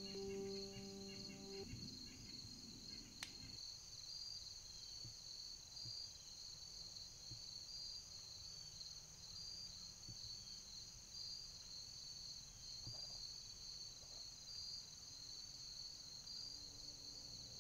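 Steady evening insect chorus of crickets: a continuous high shrill trilling at two pitches, one of them finely pulsing. Music fades out in the first two seconds, and a single sharp click comes about three seconds in.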